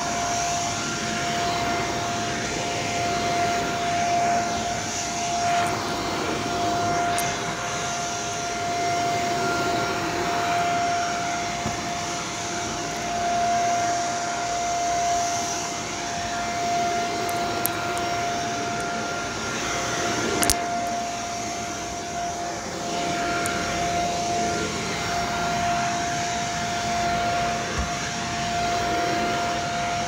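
Shark upright vacuum cleaner running on carpet: a steady motor whine holding one pitch over a rush of air that rises and falls slightly, with a single sharp click about two-thirds of the way through.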